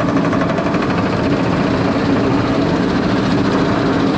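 Roller coaster train moving slowly along its track: a steady mechanical rumble with a low hum.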